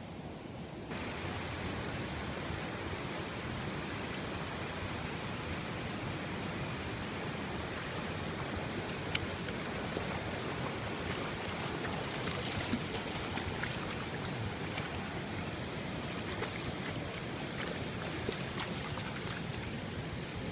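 Shallow rocky creek water running with a steady rushing hiss, with light scattered splashes as a dog wades through it.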